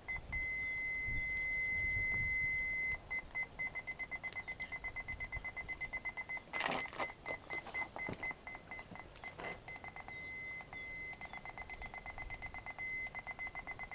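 Aftermarket reverse parking sensor kit's warning buzzer sounding: a solid high-pitched tone for about three seconds, then rapid beeping with short solid stretches, as the sensors detect obstacles very close behind the car. A few short knocks and rustles of handling come around the middle.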